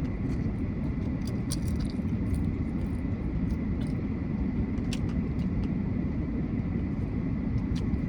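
Steady low rumble of a car heard from inside the cabin, with a few faint clicks and crackles over it.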